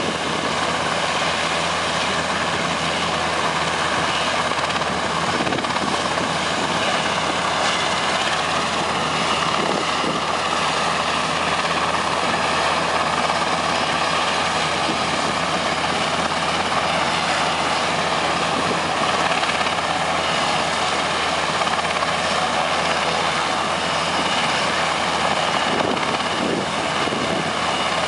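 Eurocopter AS332 Super Puma helicopter running on the ground, its main rotor turning without lifting off. A steady, unbroken rotor and turbine noise with a faint high whine.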